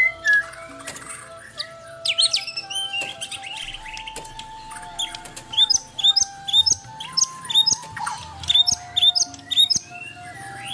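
White-rumped shama (murai batu) singing a varied song of sharp chirps and whistles, with a rapid series of short repeated notes, about two to three a second, through the middle of the song.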